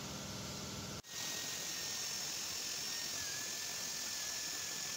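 Lincoln MKX running, heard from underneath the car, with an even low pulse. About a second in, the sound cuts out abruptly and gives way to a steady rushing noise with a faint high whine.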